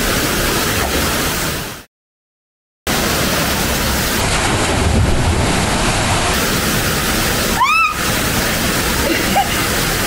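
Waterfall pouring into a pool, a loud steady rush of falling water. It cuts to dead silence for about a second near the start, then resumes. A short vocal cry rises over it about three-quarters of the way through.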